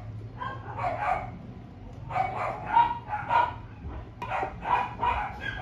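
Dogs barking repeatedly in quick runs of short barks, with a brief pause about a second and a half in.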